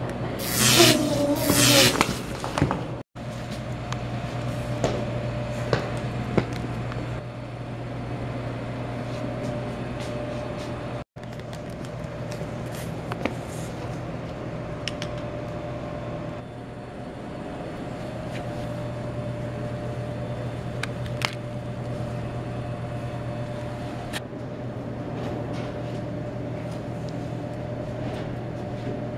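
Steady low hum of room tone with a few faint clicks and taps. Near the start there is a brief, loud sound whose pitch slides up and down.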